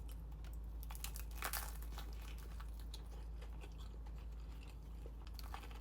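A person biting and chewing crunchy food, in short irregular crackles and clicks; the loudest bite comes about a second and a half in.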